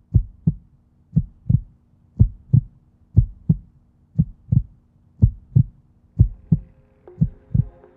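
Heartbeat sound effect: pairs of deep thumps, about one pair a second, over a low steady hum. Soft sustained music chords come in near the end.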